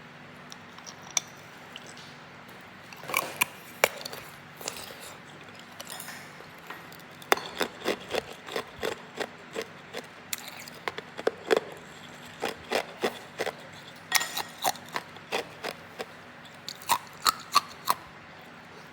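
Hard ice being bitten and chewed close to the microphone: runs of sharp, brittle crunches coming in clusters of quick cracks with short pauses between them.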